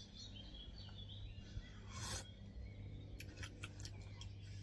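A brief slurp about two seconds in as beer sauce is sipped from a metal ladle, followed by a few light clicks, with faint birdsong behind.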